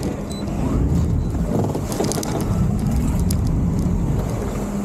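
Boat engine running at low speed with a steady low hum, picking up a little about a second in, while two boats are tied side by side for a side tow. A few short knocks and creaks sound over it.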